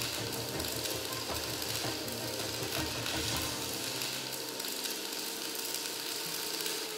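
Electric arc welding: a steady crackle and hiss from the arc as the end of an iron tie bar is welded onto a steel beam.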